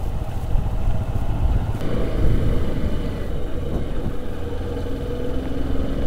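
Motorcycle riding at a steady cruise: engine running under a heavy low rumble of wind on the microphone, with a faint steady engine tone coming through from about two seconds in.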